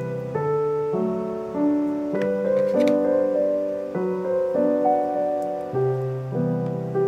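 Background piano music: a gentle tune of held notes and chords changing about every half second.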